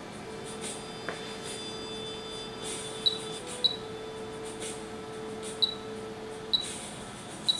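An HP 33120A function generator's front-panel beeper gives five short high beeps over a steady mid-pitched tone, with faint clicks as its keys are pressed during menu operation.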